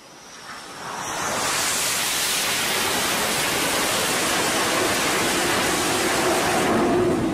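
Fighter jet's engines during a landing on an aircraft carrier deck. The jet noise swells over the first second or so and then holds steady and loud for about five seconds, with a low drone under it later on, while the jet is stopped on the deck after an arrested landing.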